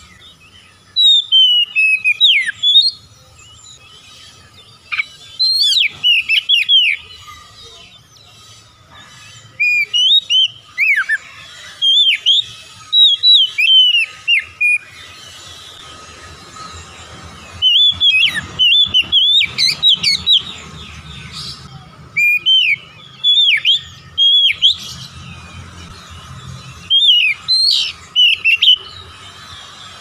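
Oriental magpie-robin (kacer) singing: repeated phrases of clear, sliding whistled notes, each lasting one to three seconds with short pauses between them.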